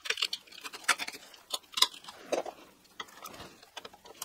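Irregular small clicks and scrapes of a screwdriver working at a flush-mounted wall socket, as the socket insert is loosened and pulled out of its box.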